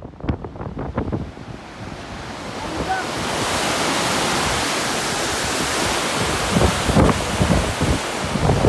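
Mountain river water rushing over a concrete weir: a steady, full hiss that builds up a couple of seconds in. Wind buffets the microphone at the start and again near the end.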